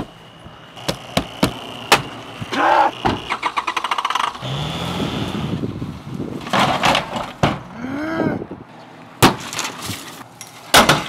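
A string of loud bangs, thumps and crashes against a minivan's body, with breaking sounds among them.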